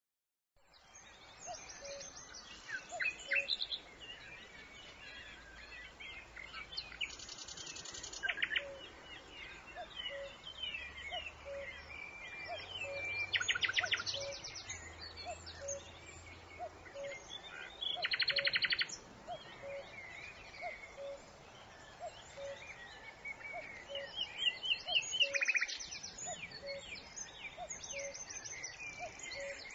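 Several songbirds singing and calling: a handful of fast trills stand out among scattered chirps and whistles, over a faint low note that repeats steadily about every second and a half.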